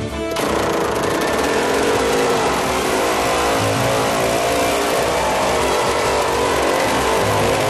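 Motorcycle engine running hard as it circles the wall-of-death drum, cutting in suddenly just after the start, its note wavering slightly up and down.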